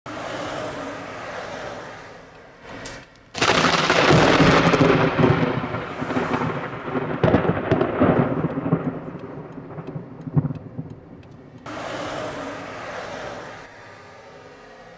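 Thunder from a nearby lightning strike: a sudden loud crack about three seconds in, then crackling, rumbling thunder that rolls on with several more peaks and dies away over about seven seconds.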